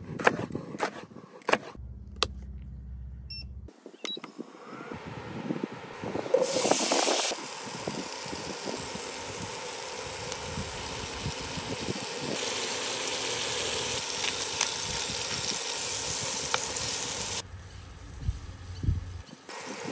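A chef's knife chopping bell pepper on a wooden cutting board, a few sharp strokes, followed by cut potatoes sizzling in oil in a frying pan, a steady hiss that is loudest a few seconds after it starts.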